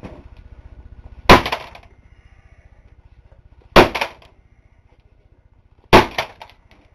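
Three heavy sledgehammer blows landing on a laptop, a couple of seconds apart. Each is a sharp crack followed by a brief clatter of breaking parts.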